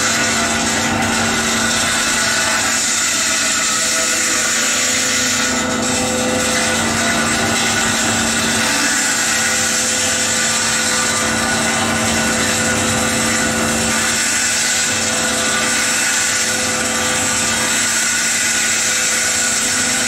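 Echidna D4HS-W excavator-mounted hydraulic diamond saw, with a 1.4 m water-cooled blade, cutting through the steel reinforcement of a pre-stressed concrete panel. It makes a steady, even grinding with a constant hum underneath.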